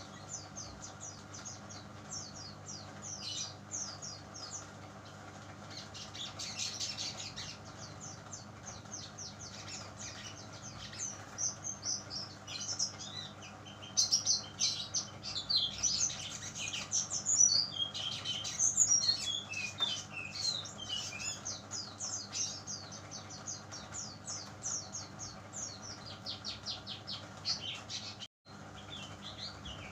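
Juvenile brown-chested jungle flycatcher singing in long rapid runs of short, high chirping notes, several a second, loudest and most varied in the middle. A steady low hum runs underneath.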